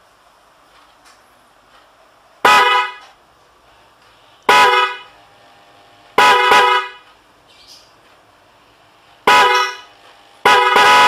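A pair of Flosser 12-volt electric car horns, high tone and low tone, sounding together in a series of honks. There are single half-second blasts, then a quick double toot, then a rapid run of short toots near the end.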